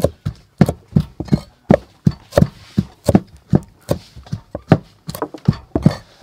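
Knife slicing red chillies on a thick round wooden chopping block, each cut ending in a knock on the wood, in a steady rhythm of about three chops a second.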